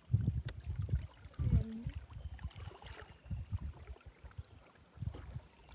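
Wind buffeting the microphone in irregular low rumbles aboard a canoe drifting on a river, with a short faint pitched sound about one and a half seconds in.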